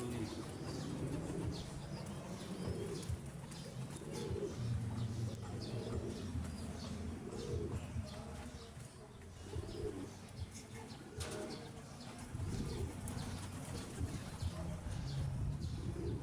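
Homing pigeons in a loft cooing, a steady series of low rounded coos about once a second.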